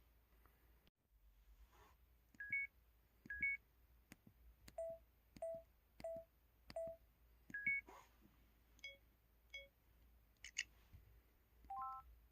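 MS500 mobile phone keypad button tones in its electronic 'Synthes' setting: a string of short, separate beeps, one per key press, at varying pitches. Some are single notes and some are quick two- or three-note chirps, with light key clicks between them.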